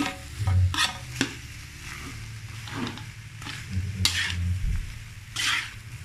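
Spatula scraping and turning fried rice in a wok, with a few sharp scrapes at uneven intervals over a faint sizzle.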